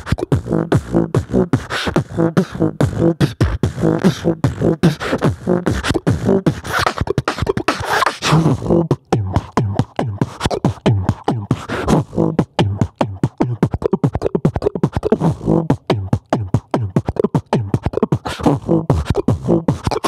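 Solo human beatboxing: a fast, unbroken run of mouth-made kick, snare and hi-hat sounds mixed with short voiced tones.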